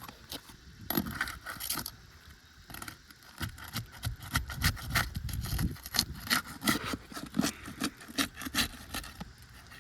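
Brittle asphalt roof shingles being pried and scraped loose by hand, with irregular scraping and clicking strokes that come thickest in the second half. The shingles are shedding granules as they are worked.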